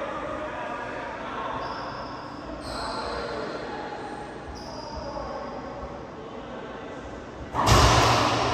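A loud sharp smack of a racquetball being struck and hitting the court wall near the end, echoing in the enclosed court. Before it, only faint distant voices and room noise.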